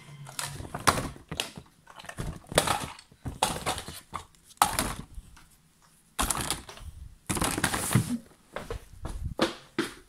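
Irregular crinkling, rustling and clicking of a shiny holographic plastic bag being handled while small toys are packed into it.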